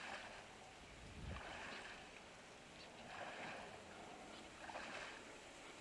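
A person wading through shallow water and soft mud, a faint slosh with each stride about every one and a half seconds.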